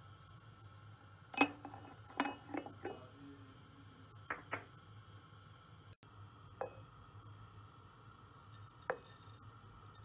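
Ceramic clinks of a porcelain teapot, its lid and a ceramic bowl being handled: a quick cluster of sharp clinks about a second and a half in, two more around four and a half seconds, and two single clinks later.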